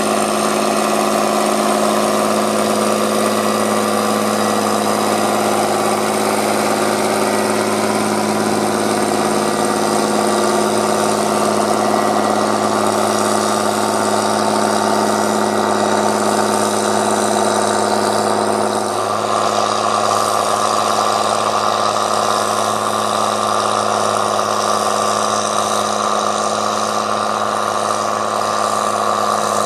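Fendt tractor's diesel engine running steadily at a constant pitch, with a sudden shift in its tone about two-thirds of the way through.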